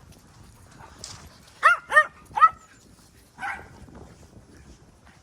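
A small dog yapping: three sharp, high barks in quick succession about two seconds in, then a softer fourth bark.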